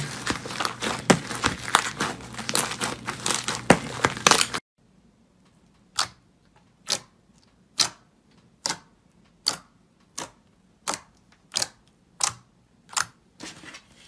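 Thick grey slime squelching and crackling densely as hands knead and squeeze it in a bowl; this stops suddenly about four and a half seconds in. Then clear green jelly slime being pressed with fingertips gives about eleven sharp pops at an even pace, a little over one a second.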